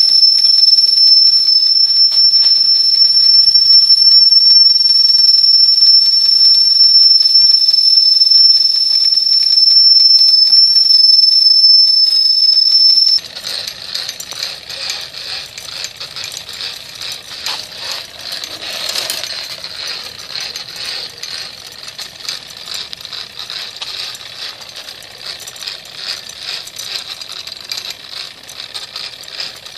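Wilesco toy steam tractor's steam whistle blowing one long, steady, high-pitched note that cuts off suddenly about 13 seconds in. After that, the tractor's small steam engine running with a fast, even rattle.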